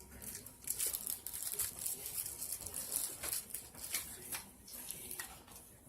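Small plastic bag being opened and handled: irregular crinkling and rustling with sharp little crackles.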